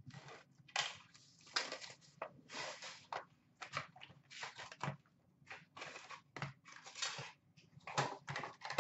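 Hands opening a cardboard box of Upper Deck Ice hockey cards and handling the foil-wrapped packs inside: a run of irregular crinkles, rustles and light scrapes.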